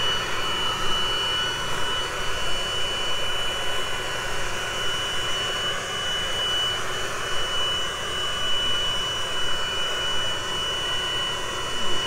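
Handheld leaf blower running steadily at full blast, a continuous rushing of air with a steady high whine, aimed at a small hovering quadcopter in a wind test.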